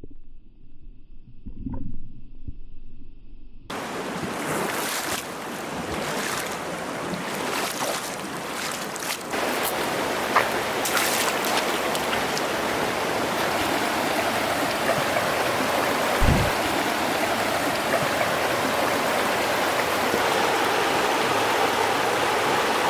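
Rushing stream water, a steady even hiss that comes in abruptly about four seconds in after a quieter start.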